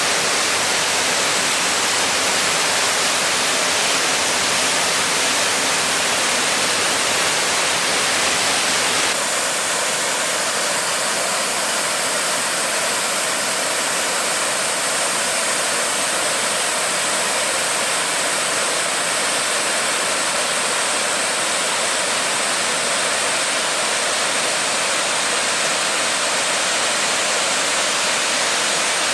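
Harajiri Falls, a waterfall, rushing with a steady wash of falling water. About nine seconds in the sound shifts a little, with less low rumble.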